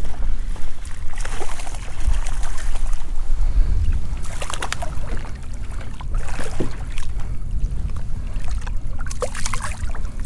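Water and wind noise around a fishing kayak: a steady low rumble of wind on the microphone with several short splashes and knocks.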